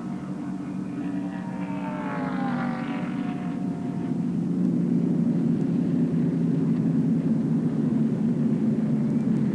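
NASCAR Winston Cup stock cars' V8 engines going past at caution pace. One car passes with a falling pitch, then the pack follows, its rumble growing louder about four seconds in and holding steady.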